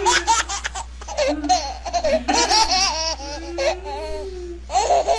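A man and a woman laughing hard together in repeated bursts of giggles, over a steady low hum.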